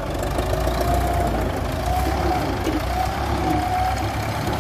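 Diesel engine of a 1977 Russian tractor running steadily. A thin whine above the low drone slowly wavers up and down in pitch.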